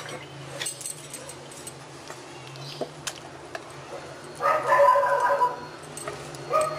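A dog in the background gives a drawn-out bark about a second long, about four and a half seconds in, and a short rising yelp near the end. Before that come only a few light clicks of a wooden spatula in the pan over a faint steady hum.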